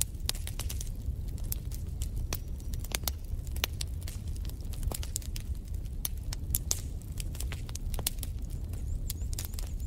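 Log fire crackling in a fireplace: irregular sharp pops and snaps over a low, steady rumble.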